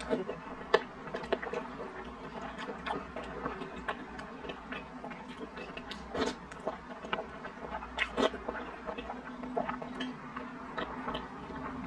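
Close-up mouth sounds of eating soft, sticky glutinous rice in syrup: wet chewing, lip smacks and slurps, heard as a stream of irregular clicks and smacks.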